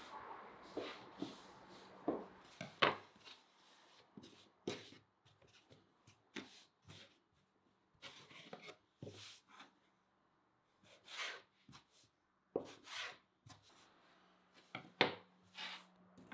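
Food preparation at a kitchen work surface: irregular taps, knocks and scraping strokes, some sharp and some soft, spread across the whole stretch. A faint steady low hum sits underneath.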